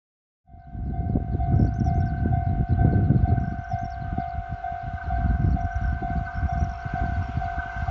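Japanese level-crossing warning bell ringing: a repeated electronic 'kan-kan' tone, a little under three strikes a second, starting about half a second in. It warns that a train is approaching. A loud, uneven low rumble runs beneath it.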